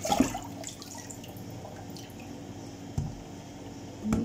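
Tap water running and dripping into a sink, with a few knocks of a plastic tub being handled against the sink: just after the start, about three seconds in, and near the end.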